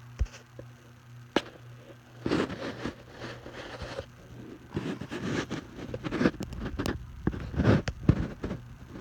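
Irregular rustling, scraping and clicking, with two sharp clicks in the first second and a half, over a steady low hum.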